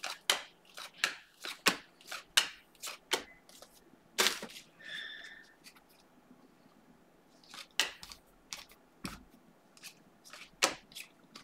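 A stack of Panini Mosaic football trading cards being flipped through by hand: irregular snaps and slides of card against card, with a short pause about halfway through.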